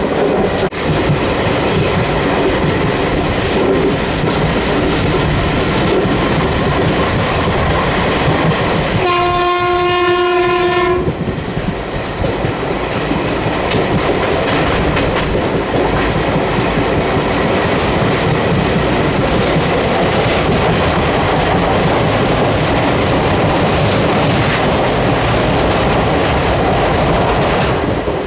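Passenger train running with steady wheel clatter over the rails, and one horn blast of about two seconds from its WCAM electric locomotive, roughly a third of the way in.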